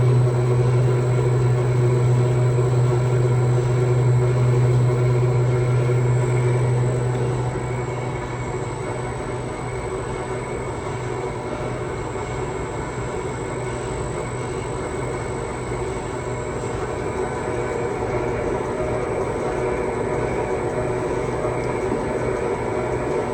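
Cold press oil expeller machine running with a steady mechanical drone. A strong low hum drops away about seven seconds in and the machine runs on slightly quieter.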